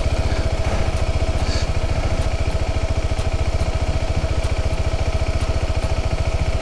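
Single-cylinder motorcycle engine idling steadily at an even beat, with no revving.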